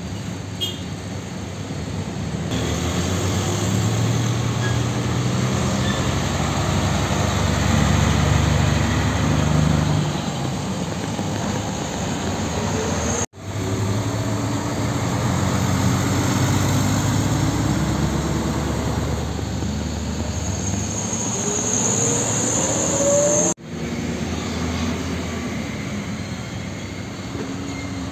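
Heavy diesel trucks, including container tractor-trailers and a Mitsubishi Fuso, driving past one at a time with their engines running at a low rumble. The sound breaks off abruptly twice between trucks. In the middle stretch the engine pitch rises steadily as the truck pulls away.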